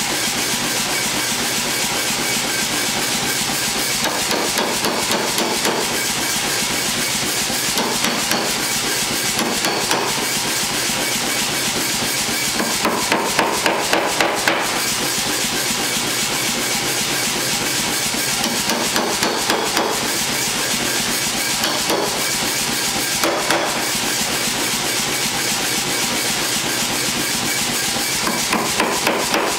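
Hand hammer striking red-hot steel held on a vise-mounted anvil block, in short bursts of quick blows with pauses between them. A steady background roar runs underneath.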